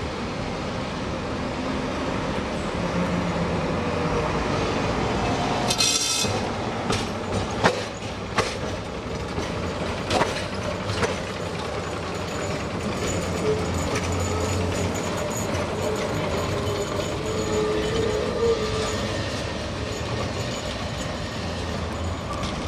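An old Riga-built street tram running past on its rails, with a steady rumble of wheels and running gear. There is a short hiss about six seconds in, and a few sharp clicks over the next five seconds.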